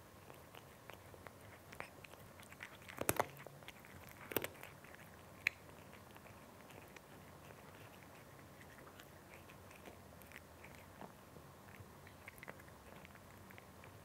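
A cat chewing dry kibble: irregular small crunches, with a louder burst of crunching about three seconds in and again a second later, then sparser, quieter crunches.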